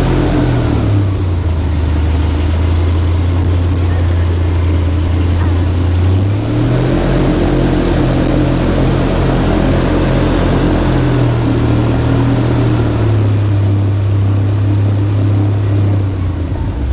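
Airboat's engine and air propeller running loud, with the engine speed dropping about a second in, rising again around six seconds, easing slightly a few seconds later and falling off near the end as the throttle is worked.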